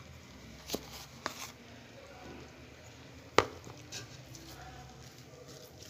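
A few short sharp knocks over a faint low hum, the loudest just past halfway.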